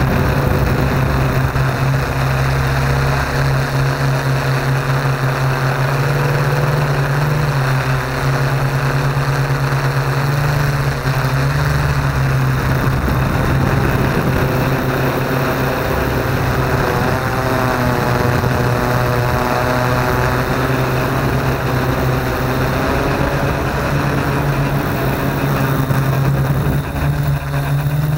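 Yuneec Q500 Typhoon quadcopter's electric motors and propellers humming steadily, picked up by the camera on the drone itself, with the pitch wavering a little about two-thirds of the way through.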